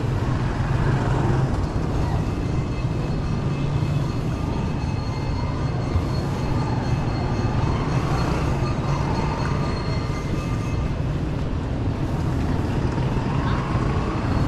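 Steady city street traffic noise: cars and motorcycles running along the road beside the sidewalk.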